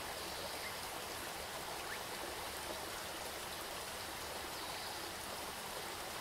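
Steady water ambience: an even hiss of running water with no change in level.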